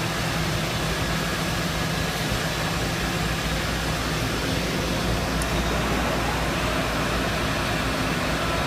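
Mori Seiki SuperMiller 400 mill-turn center running in lathe mode, its table spinning at 1,500 RPM: a steady machine whir and hum with no change in speed.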